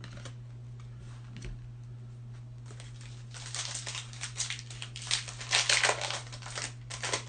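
Trading card pack wrapper crinkling and tearing as it is opened. The rustling picks up about three seconds in and is loudest near the six-second mark, over a steady low electrical hum.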